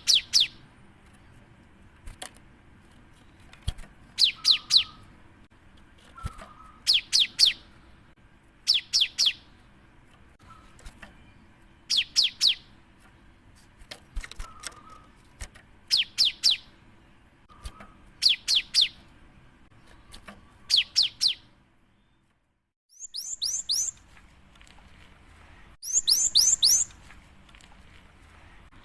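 Cinereous tit (gelatik batu) singing: short phrases of three or four quick, high, falling notes, repeated about every two seconds. After a brief silent gap near the end, two bursts of higher, faster notes follow.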